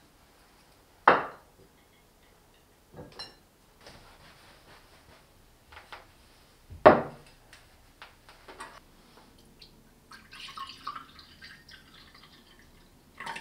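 Dishes set down on a wooden table: two sharp knocks with a few lighter clinks between. Near the end, orange juice is poured from a plastic bottle into a glass.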